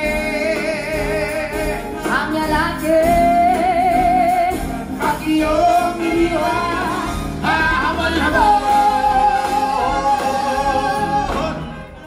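Live band music with a singer holding long, wavering notes over the accompaniment; the music drops away near the end.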